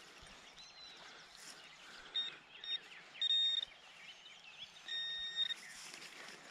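Metal detector sounding its target tone over a buried piece of metal: two short beeps, then two longer tones, all at one steady high pitch. Faint bird chirps run underneath.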